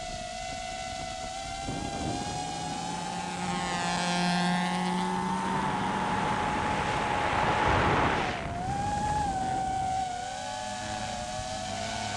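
An FPV drone's motors whine at a steady high pitch while it chases a rally car on a gravel stage. The car's engine runs hard beneath the whine, and a rush of noise swells to a peak about eight seconds in, then drops off sharply.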